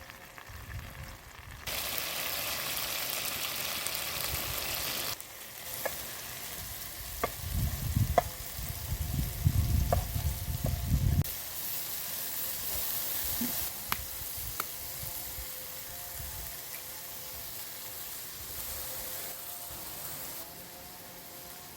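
An omelette frying in a pan over an open fire. Loud sizzling starts about two seconds in, and in the middle a utensil clicks and knocks against the pan as the omelette is stirred.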